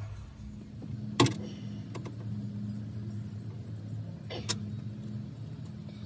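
Two sharp metallic clicks about three seconds apart, with a fainter one between, from the Ford F250 rear door's latch and cable-clip parts being handled during reassembly. A steady low hum runs underneath.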